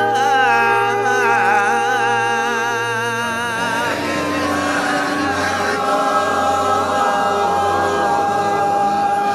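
Chanted prayer music: a solo voice sung with a wide vibrato over a held low drone, giving way about four seconds in to a fuller, choir-like vocal texture with a steady held note.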